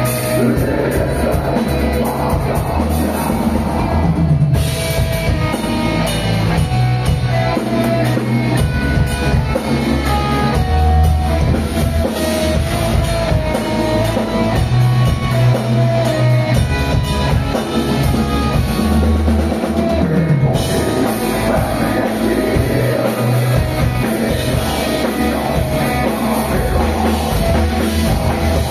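A live black metal band playing loud: distorted electric guitar over a pounding drum kit, with the high end getting brighter about four seconds in.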